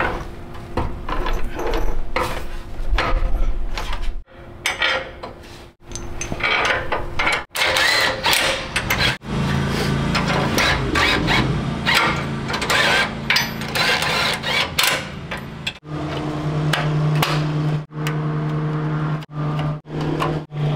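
Work sounds from bolting a steel bumper onto a truck: knocks and clanks of metal and tools, then a power tool running steadily in several stretches from about nine seconds in. The sound stops and starts abruptly several times.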